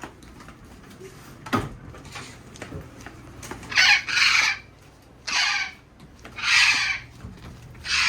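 A parrot squawking: four loud, harsh calls in the second half, after a single knock about a second and a half in.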